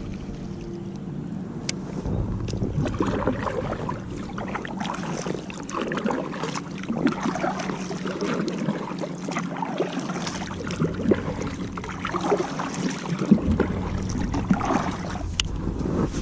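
Water splashing and knocking around a kayak, irregular from about two seconds in, over a low steady hum.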